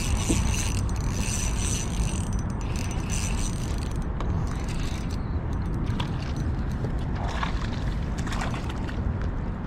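Fishing reel being cranked, its gears clicking, as a hooked crappie is reeled in.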